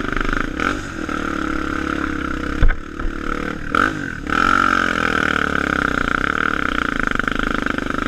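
Dirt bike engine running under varying throttle on a rough trail: the revs drop and pick up again a few times in the middle, then hold steady and strong. A single sharp thump comes about two and a half seconds in.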